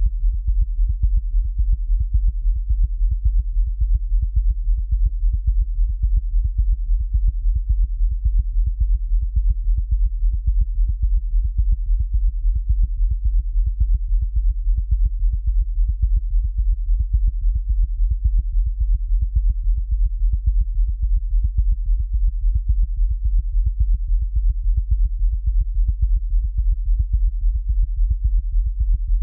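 Synthesized heartbeat sound effect made from synthetic bass: deep, racing, pounding beats in a fast, even rhythm that does not change.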